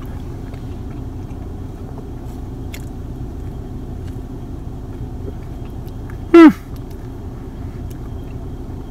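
A person biting and chewing a pain au chocolat inside a car, over a steady low hum from the car. About six and a half seconds in, a short voiced sound falls in pitch.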